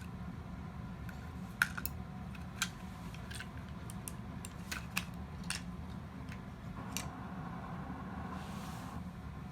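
Scattered sharp clicks and taps from the plastic parts of a toy robot being handled and pulled apart, the loudest about one and a half seconds in, over a steady low hum.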